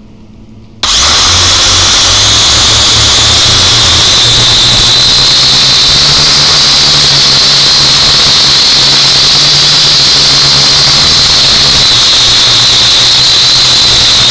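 Small camera quadcopter drone's electric motors and propellers spinning up abruptly about a second in and then running loud and steady as it lifts off and flies, heard through the drone's own onboard camera microphone, with a steady high whine over the propeller noise.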